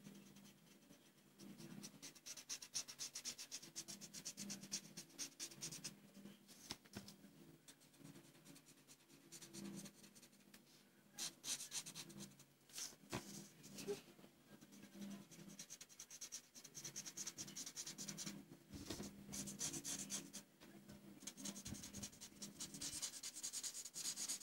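Felt-tip marker tracing a frame on a paper card: faint runs of short scratchy back-and-forth strokes with brief pauses between, over a low steady hum.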